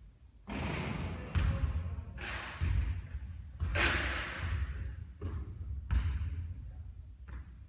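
A basketball thudding and bouncing during three-point shooting practice, with a string of impacts roughly a second apart.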